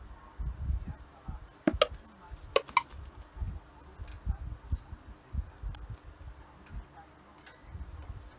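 A cockatiel's beak and claws clicking and tapping on a chrome wire rack, a few sharp metallic clicks about two seconds in, over soft, irregular low thumps.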